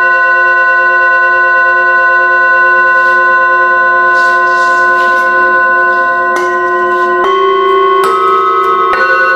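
A set of small Tibetan singing bowls (chakra bowls) ringing: several bowls hum together in sustained, slowly fading tones. From about six seconds in, four bowls are struck with a mallet one after another, each adding a new, higher tone over the ringing.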